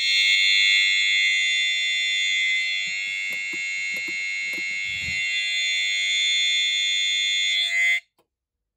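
Tornado alarm sounder of a home warning system sounding a loud, steady, high-pitched electronic tone during its weekly test, cutting off suddenly about eight seconds in. A few faint low knocks come midway.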